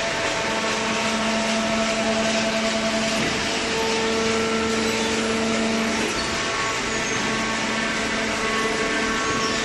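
HSM paper baler running: a steady machine hum and whine from its hydraulic pump and motor over a broad hiss, its tone shifting about six seconds in.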